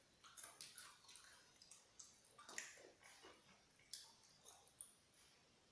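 Faint wet mouth clicks and smacks of someone chewing food, scattered irregularly one or two a second over quiet room hiss.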